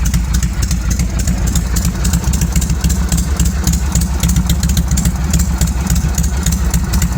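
Harley-Davidson Shovelhead V-twin engine idling steadily and loudly, with fast, even pulsing.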